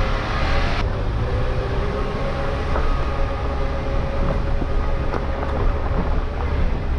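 A car driving slowly over a rough dirt road, with a steady low engine and road rumble and occasional small knocks from the bumpy surface.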